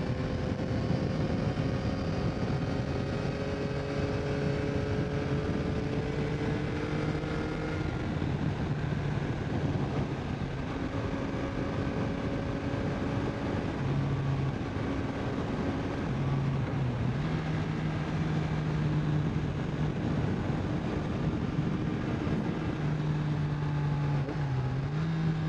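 Yamaha MT-09's 890 cc inline three-cylinder engine on its stock exhaust, recorded from under the seat, running steadily under way. Its note rises slowly over the first several seconds, with a few changes of throttle and engine speed later on.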